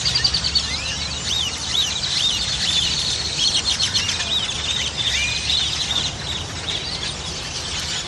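A huge flock of black birds roosting in a tree, calling all at once: a dense, unbroken chorus of overlapping whistles and chatter.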